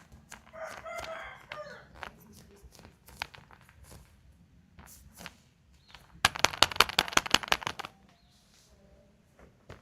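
Handling and crinkling of surprise-egg candy packaging, with scattered sharp clicks; about six seconds in, a loud, rapid run of crackling clicks lasts nearly two seconds. Near the start, a short pitched cry of about a second.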